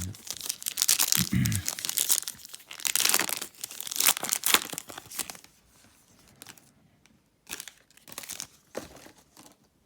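Plastic trading-card pack wrappers being crumpled and torn by hand: dense crackling and tearing for about five seconds, then a few short rustles.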